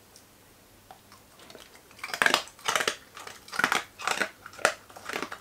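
A dog biting and chewing hard, crunchy dog biscuit treats: a run of sharp crunches starting about two seconds in.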